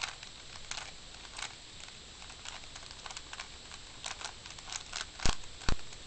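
Plastic Rubik's Cube being scrambled: its layers are twisted in quick turns, giving a scatter of light plastic clicks and clacks. Two louder knocks come about five seconds in.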